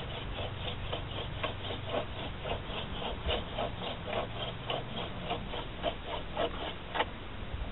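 Hand drill friction fire: a wooden spindle spun back and forth between the palms and grinding into a hearth board, making an even rhythm of rasping strokes about four a second. A sharper click comes about seven seconds in.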